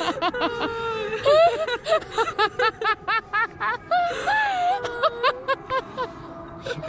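Women laughing together, a string of quick repeated laughs at about four a second, breaking into a few longer wavering laughs midway.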